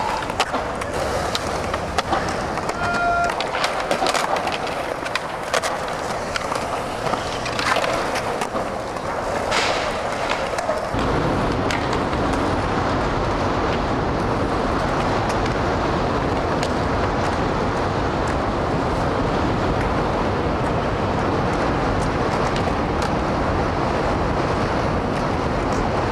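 Skateboard on concrete: the wheels rolling, with sharp clacks of the board's tail popping and landing over roughly the first ten seconds, then a steady rush of wheels rolling.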